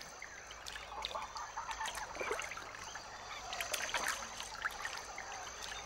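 Water birds calling in the background, a scattering of short calls and chirps.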